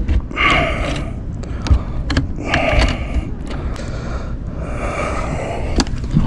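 Three scraping rasps about two seconds apart, with small sharp clicks between them, as a long-reach lockout tool is worked inside a vehicle door.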